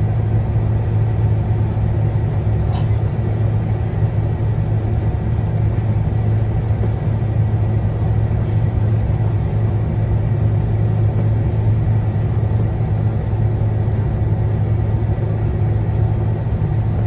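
Airbus A350 cabin noise on final approach: a steady low drone from the Rolls-Royce Trent XWB engines at approach thrust and the airflow over the airframe, heard from inside the cabin.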